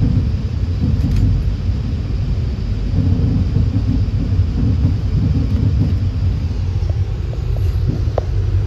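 VIA Rail passenger train running along the track, heard aboard: a steady low rumble of wheels on rail and the moving car, with faint ticks and a brief squeak near the end.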